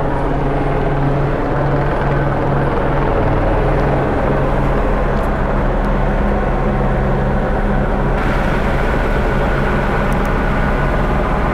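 Steady low engine drone with a constant hum, turning brighter and hissier about eight seconds in.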